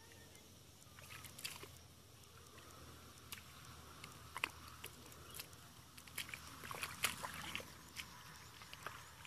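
Feet and hands working in wet mud and shallow water: irregular squelches, smacks and small sloshes, busiest about six to eight seconds in.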